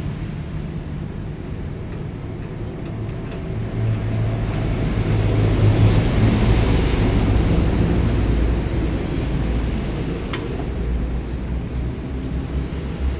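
Mitsubishi PS100 truck diesel engine running while being tuned. Its revs rise about four seconds in, hold for a few seconds, then settle back to a steadier run.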